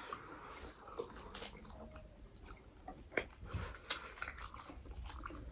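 A person chewing food close to the microphone, with scattered small clicks and smacks of eating.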